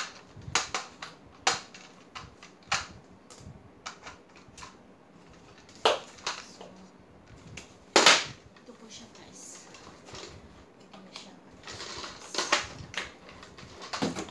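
Plastic parts of a Panasonic MC-CL565 canister vacuum cleaner clicking and knocking as the floor nozzle, wand and hose are handled and fitted together; the vacuum is not running. Sharp single knocks, the loudest about six and eight seconds in, with a quicker cluster of clicks and rattles near the end.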